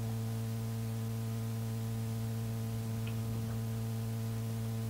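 Steady electrical mains hum, a low buzz with higher overtones, under a faint even hiss on an old reel-to-reel tape recording.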